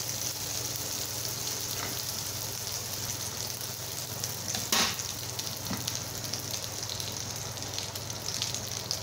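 Butter sizzling in a hot nonstick frying pan, a steady crackling hiss as the pan is greased for pancake batter. A sharp knock sounds about five seconds in, with a fainter one just after.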